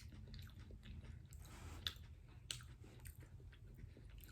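Faint close-up chewing of food, with scattered small mouth clicks.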